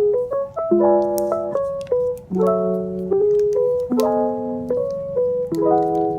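Background piano music, a gentle melody over chords that change about every second.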